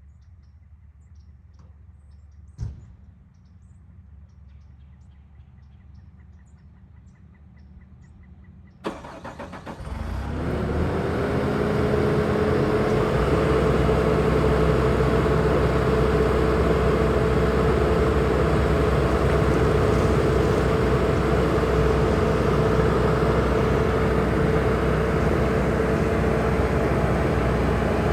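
Bobcat T870 skid steer's diesel engine cranks and catches about nine seconds in, then runs steadily at idle with a constant whine. Before the start there is a single click and a short run of faint beeps.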